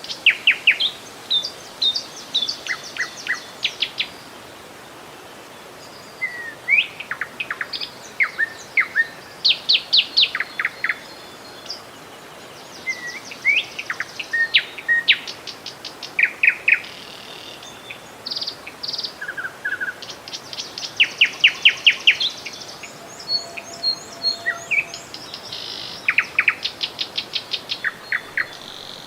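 Several songbirds singing and calling: rapid trills of sharp notes, short rising chirps and whistled phrases, coming in bursts with short gaps. A steady, even hiss lies beneath them throughout.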